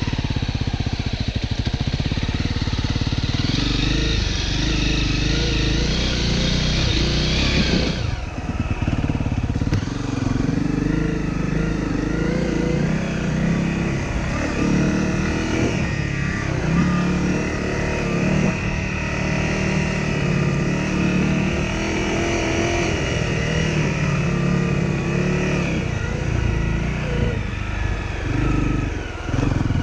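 Honda CRF250L's single-cylinder four-stroke engine running while the bike is ridden, its pitch rising and falling with the throttle. The sound shifts abruptly about eight seconds in.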